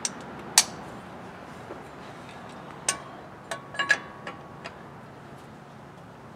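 Sharp, irregular metallic clinks of a large socket and wrench on a truck hub's axle spindle nut as it is tightened down to seat the wheel bearings. There are about eight clicks, some with a short ring; the loudest come about half a second in and near four seconds.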